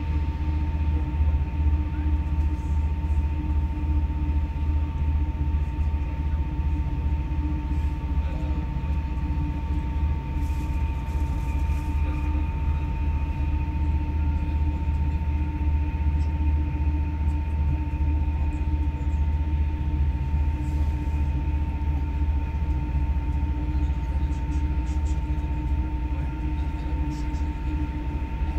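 Steady rumble inside an electric passenger train running at speed, with a constant high whine and a lower hum over it.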